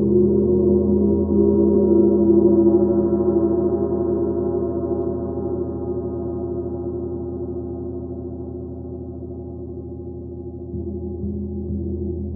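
28-inch Black Sun gong played with a small soft mallet, its deep ringing wash swelling for the first few seconds and then slowly fading. About eleven seconds in, a soft stroke with a larger mallet brings the low hum back up.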